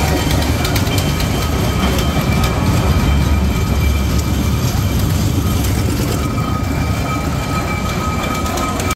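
Cars of a small dragon mini-coaster fairground ride running on a steel rail track: a steady low rumble with rapid, irregular clattering.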